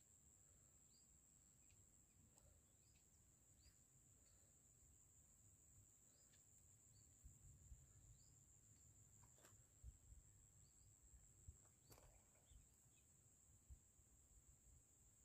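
Near silence with faint outdoor insect noise: a steady high-pitched drone, with a few short high chirps and a couple of light clicks.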